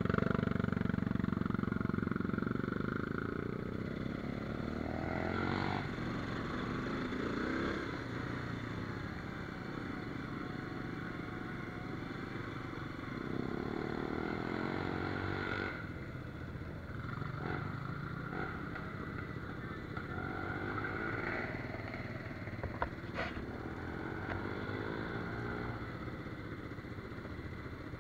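A quad bike's engine running as it is ridden along a gravel trail, its pitch rising and falling with the throttle, loudest in the first couple of seconds. A few sharp clicks or knocks stand out briefly later on.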